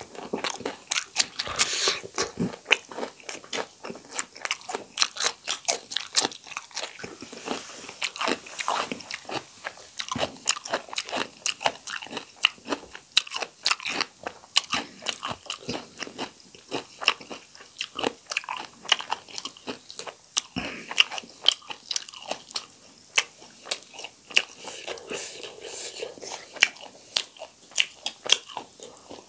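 Close-miked eating of whole roasted chicken and raw cucumber slices: a steady run of crunchy bites and wet chewing, full of quick crackly clicks.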